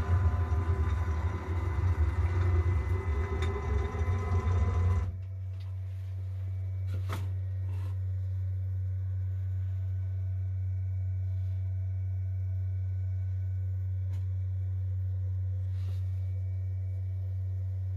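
6040 CNC router's spindle driving a 3 mm endmill through 304 stainless steel on a finishing pass: a loud, gritty cutting noise with steady whining tones that stops abruptly about five seconds in. A steady low hum carries on after it, with a single click about seven seconds in.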